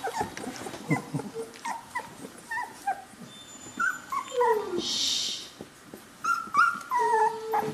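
Three-week-old Chinook puppies whimpering and squeaking: a string of short high whines, one sliding down in pitch about four seconds in and a longer held whine near the end. A brief rustling hiss comes in the middle.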